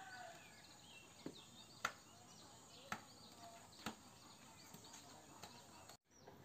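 Faint outdoor ambience in a yard with chickens: the end of a rooster's crow fades out at the very start, faint bird chirps follow, and a few sharp clicks or knocks come in the first four seconds.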